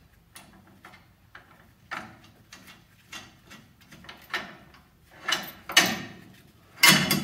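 Small metal hardware being worked by hand on a car's front suspension: irregular metallic clicks and taps as a bolt and nut are fitted, with a few louder clunks near the end.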